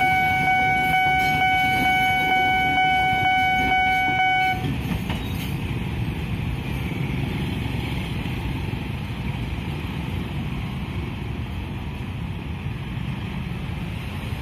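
Nippon Signal level-crossing alarm sounding a repeating ding, cutting off about four and a half seconds in as the crossing clears. After that, motorcycles and cars run across the crossing.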